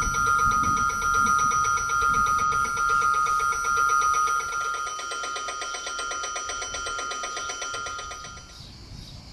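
Electronic level-crossing warning bell ringing in a fast, even pulse, announcing an approaching train; louder for the first four seconds or so, it stops about eight and a half seconds in.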